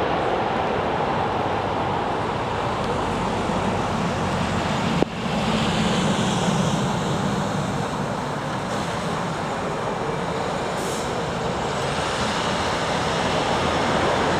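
Jet airliner engines running steadily, a constant rumbling noise, with a single sharp click about five seconds in.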